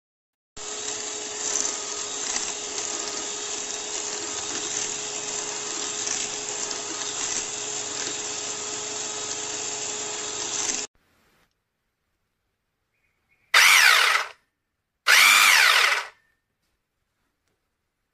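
Electric hand mixer running steadily with its wire whisks beating in a bowl, with a constant motor hum; it stops suddenly about eleven seconds in. Then a small handheld frother motor is switched on twice for about a second each time, its pitch rising and falling.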